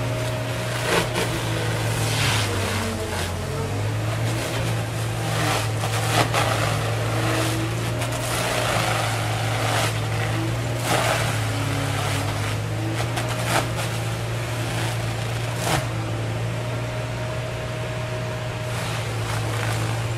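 Excavator-mounted Shin Systems mulching head spinning its hardened steel teeth into a chestnut oak, driven by a diesel power pack. The engines drone steadily, the pitch sagging under load about two to three seconds in, with repeated sharp cracks and rasping bursts as the teeth chew through the hardwood.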